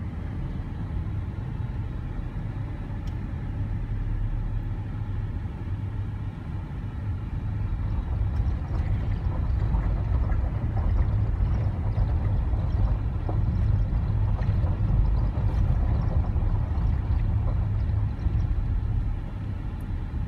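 Car engine and tyre rumble heard from inside the cabin while driving slowly, a steady low drone that grows a little louder about eight seconds in.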